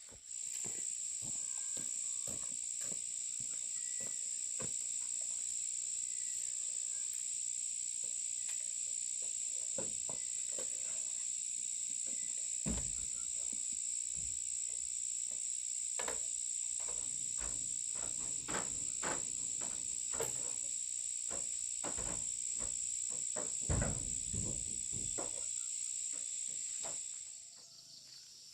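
Insects shrilling in one steady high note that switches on abruptly and cuts off suddenly near the end, over scattered clicks and knocks of things being handled, with a few louder knocks about halfway through and again later.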